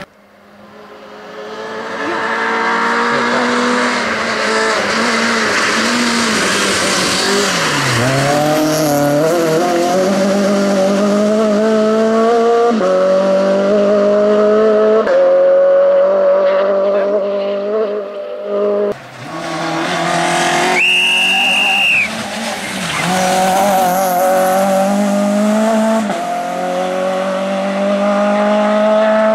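Citroen C2 R2 rally car's four-cylinder engine driven hard, its note climbing through the gears and dropping back at each upshift, with a lift and blip of revs for a corner about a quarter of the way in. A brief high squeal comes about two-thirds of the way in.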